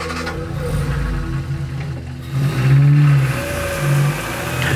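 A small car's engine running and being revved as the car moves off, swelling loudest about halfway through and again near the end.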